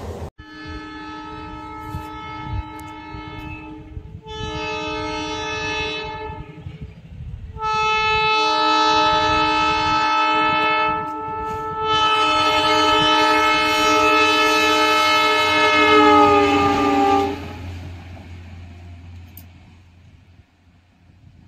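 Indian Railways train horn sounding four times as a chord of several tones: three blasts of a few seconds each, then a longer one of about five seconds that drops in pitch as it cuts off. A low rumble sits underneath.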